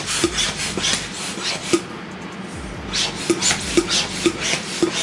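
Small plastic hand balloon pump being worked in quick strokes, each stroke a short rasping rush of air and plunger, about three a second, pausing briefly about two seconds in. The cheap pump is slow to inflate the balloon.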